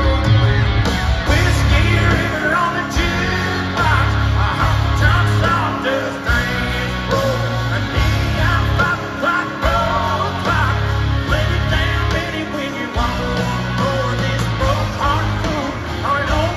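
A live country band in full swing, heard from the arena stands: electric guitar, drums and heavy bass, with a male lead vocal singing over them.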